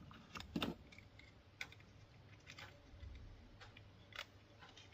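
Faint, scattered clicks and taps of small model locomotive parts being handled and fitted together, a few light knocks about a second apart.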